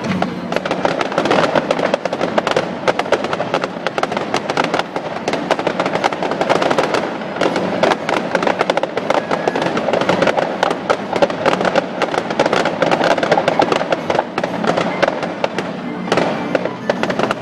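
Fireworks crackling densely, a rapid, unbroken crackle of many small reports, with music playing underneath.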